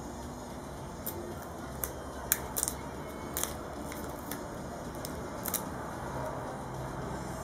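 Scattered sharp plastic clicks and small crackles, about eight over a few seconds, from fingers handling a Samsung Galaxy S2 smartphone and picking at its protective plastic film.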